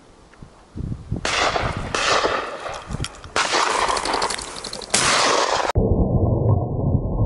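A pheasant flushes with a clatter of wings, followed by two blasts from a double-barrelled shotgun about a second and a half apart. Near the end the sound turns muffled and low.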